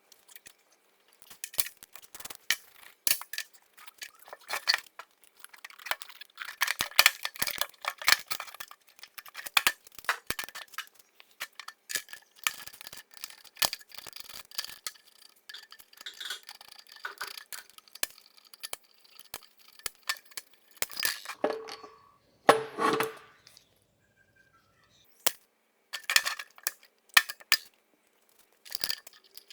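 Metal parts and hand tools clicking and clinking at irregular intervals during work on a KamAZ gearbox shift-lever end and its bushing. A louder, deeper knock-and-scrape comes about three quarters of the way through.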